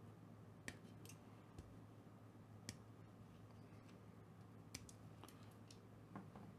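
Near silence: a few faint, scattered clicks of small parts and tools being handled on the LED tower build, over a low steady hum.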